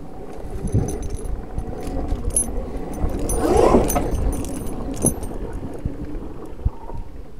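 Zero FX electric enduro motorcycle ridden over a bumpy dirt track: no engine note, only rattling, clinking and knocking from the bike jolting over the ground, over a rumble of tyre and wind noise. A brief whine rises and falls about three and a half seconds in.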